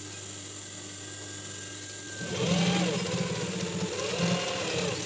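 Industrial sewing machine: its motor hums steadily, then about two seconds in it starts stitching fabric, its speed rising and falling, and stops just before the end.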